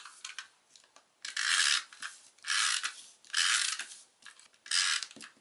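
Hands rubbing and sliding a piece of cardstock across paper, making four short rasping swishes.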